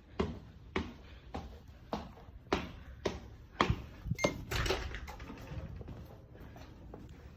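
Footsteps on a hard floor, a little under two steps a second, with a brief high beep about four seconds in.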